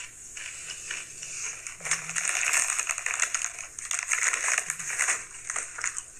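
A crinkly Sun Chips bag being handled and the chips being crunched: a dense run of small crackles from about two seconds in until about five seconds in.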